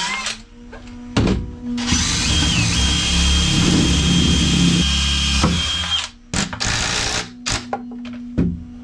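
A handheld power tool, drill-like, runs steadily for about three seconds. Its high whine steps up in pitch once near the start, then holds. A few short, sharp knocks come before and after it.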